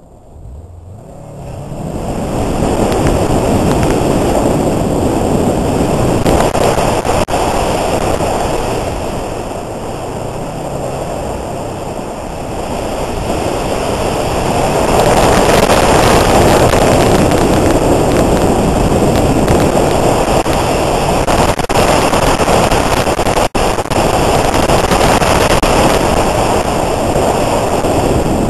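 Wind rushing over the microphone of a hood-mounted camera on a 2007 Subaru Forester XT driven hard through an autocross course, mixed with the car's turbocharged flat-four engine. The sound swells over the first couple of seconds as the car launches, eases somewhat midway, then stays loud.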